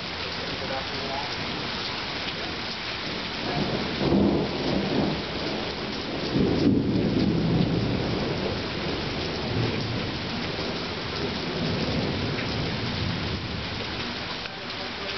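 Steady rain with thunder rumbling: a short rumble about four seconds in, then a longer, louder one from about six seconds that dies away over a few seconds.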